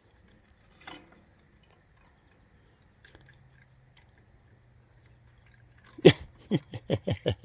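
Steady high chirring of insects, then about six seconds in a woman's short burst of laughter: one loud note and then five quick falling notes.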